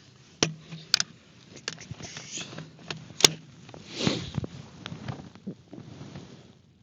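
A few sharp clicks, the loudest a little past three seconds in, with rustling handling noise around them, in keeping with a rifle and gear being handled at the bench.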